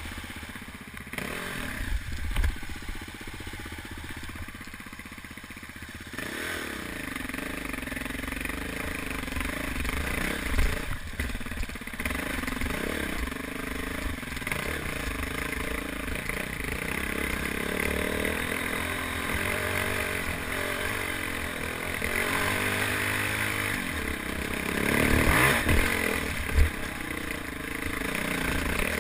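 Single-cylinder dual-sport motorcycle engine running low for the first few seconds, then revving up about six seconds in and pulling up a rocky trail climb, revs rising and falling with the throttle, over the clatter and scrape of the bike on rocks. A sharp knock near the end.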